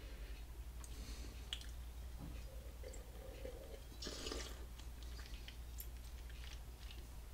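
Faint wet mouth sounds of red wine being sipped from a glass and worked around the mouth, with small clicks and a brief louder sip about four seconds in, over a steady low hum.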